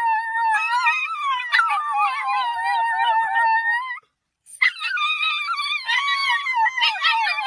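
A dog howling in long, wavering, high-pitched notes, breaking off about four seconds in and starting again half a second later.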